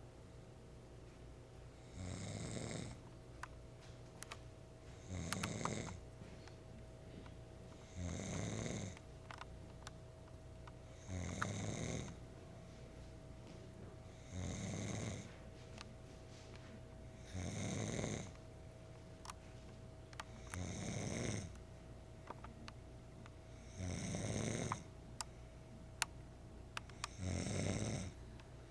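A sleeper snoring in a slow, regular rhythm: nine snores, one about every three seconds, each lasting under a second. The uploader likens the snoring to a motorboat.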